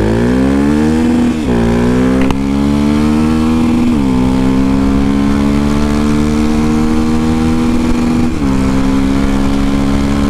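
Honda XR250 Tornado's single-cylinder four-stroke engine pulling away and accelerating. Its pitch rises through each gear, with upshifts about one and a half, four and eight and a half seconds in, before it settles to a steady cruise.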